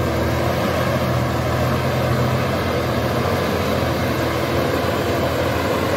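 Diesel engine of a heavily loaded Hino Euro 4 truck running steadily as it drives slowly past, a deep, even drone.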